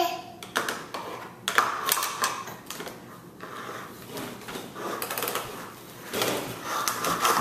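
Irregular hard plastic clacks and taps on a tile floor, a plastic measuring cup and toy walker knocking on the tiles as a baby crawls.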